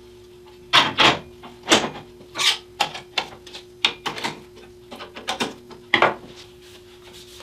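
Sharp metal clicks and knocks from handling the aluminium Accu-Slice sliding table on the band saw and a screwdriver, about a dozen separate strikes spread over several seconds, over a steady low hum.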